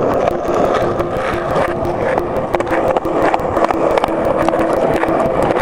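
Skateboard rolling along a concrete sidewalk: a steady rolling rumble of the wheels on the pavement, broken by frequent small clicks, a few every second.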